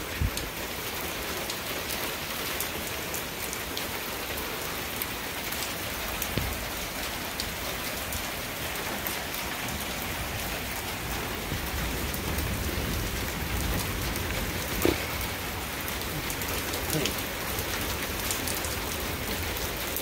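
Steady heavy rain, with scattered sharp ticks and a single louder knock about fifteen seconds in.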